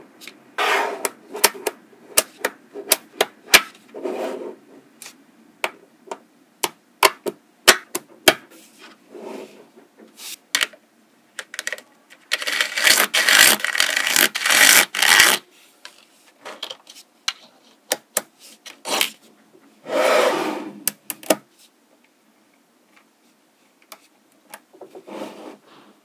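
Small magnetic metal balls clicking sharply as they snap together, in many separate clicks, with two longer stretches of scratchy rubbing about halfway through and again a few seconds later as a thin sheet is slid across the layers of balls.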